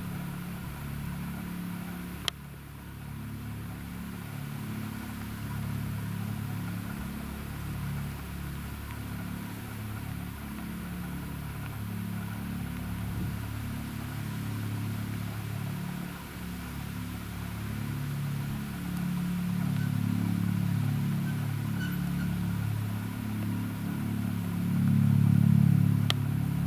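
Eurocopter EC 155 helicopter approaching to land, its rotor and turbine sound growing louder toward the end as it comes closer. A sharp click comes about two seconds in and another near the end.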